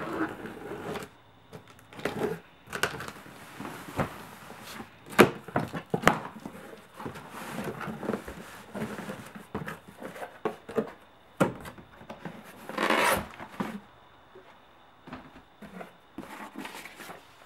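A cardboard shipping box being opened by hand: irregular knocks and scrapes of cardboard, with rustling paper and tape, and one longer, louder noise about thirteen seconds in.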